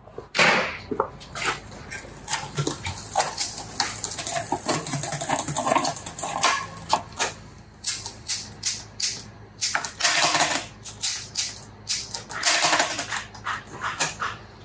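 Irregular clicking and rattling of a road bike's rear derailleur and chain being worked by hand, with a few short bursts of rattle.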